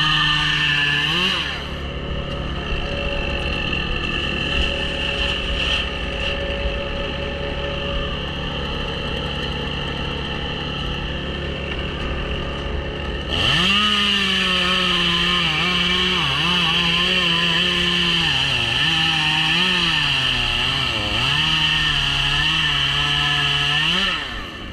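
Chainsaw cutting white birch at full throttle, then dropping back to idle for about ten seconds. About halfway through it revs up sharply and cuts again, its pitch dipping and recovering as the chain bogs under load in the wood.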